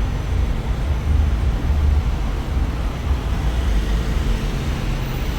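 A motor vehicle's engine runs with a steady low rumble, heard with a constant noise hiss over it.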